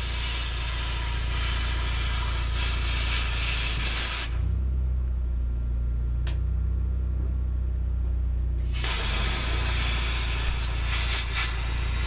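Vevor plasma cutter cutting through a truck cab's sheet steel: a loud rushing hiss of arc and air that stops about four seconds in, then starts again near nine seconds for another cut. A low steady hum runs beneath throughout.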